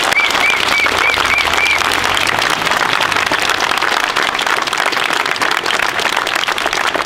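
A crowd applauding: dense, steady hand-clapping from many people. In the first two seconds it is joined by a quick run of six short high chirps.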